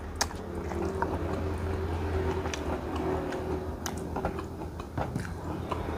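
Eating sounds from a person eating with the hands: irregular small clicks and smacks of chewing and fingers picking at the food, over a steady low hum.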